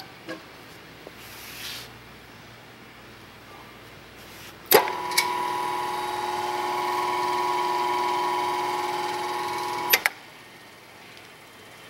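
Hobart HCM300 vertical cutter/mixer's 5 hp motor switched on with a click, running with a steady whine of several pitched tones for about five seconds, then switched off with a click and cutting off suddenly.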